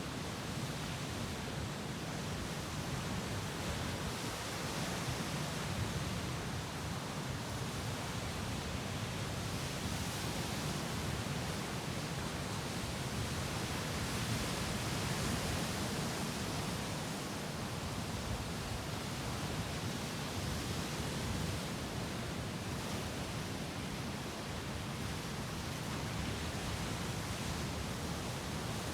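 Sea waves breaking and washing against rocks: a continuous surf hiss that swells and eases gently.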